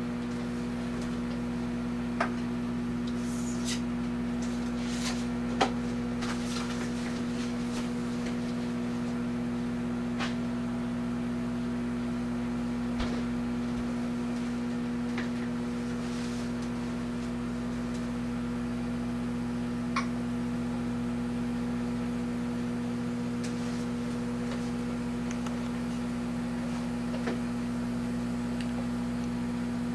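Amazon Basics 0.7 cu ft microwave oven running, a steady even hum, partway through a six-and-a-half-minute cycle heating a sweet potato. A few faint isolated clicks sound over the hum.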